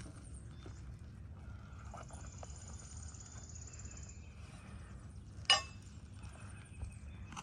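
One sharp, ringing metallic knock about five and a half seconds in, a hand tool striking a nail or metal during shingle removal on an asphalt-shingle roof, over quiet handling and outdoor noise.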